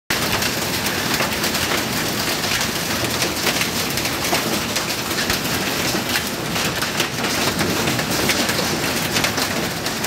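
Rain falling on a tiled floor: a steady, dense hiss of drops with many small sharp impacts on the hard surface.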